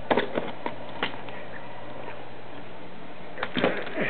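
A scatter of light clicks and knocks: several in the first second and a denser cluster near the end, over a faint steady hum.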